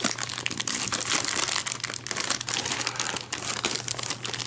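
Thick, glossy gift-wrapping paper crinkling and crackling continuously as hands pull and tear at it to open a wrapped present.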